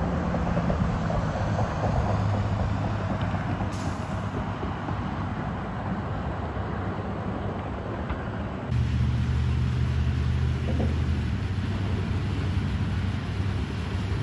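Motor vehicle engines running with a steady low hum over a constant wash of noise. About two-thirds of the way through the sound changes abruptly to a louder, deeper engine rumble.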